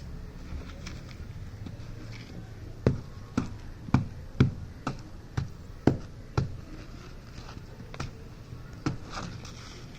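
Chunks of hard-set gritty sand-cement texture being broken and crumbled by hand: a quick run of about nine sharp cracks in the middle, then two more, spaced out, near the end.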